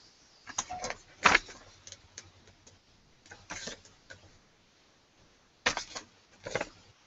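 Paper rustling as a printed instruction sheet is handled and flipped, in short bursts: a few in the first second and a half, one in the middle and two near the end.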